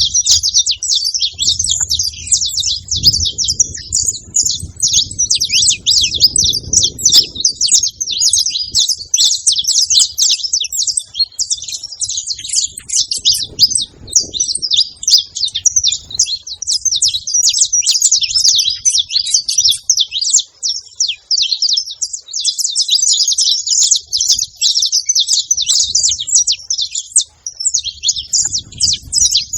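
Saffron finches chirping in a continuous, rapid run of short high chirps.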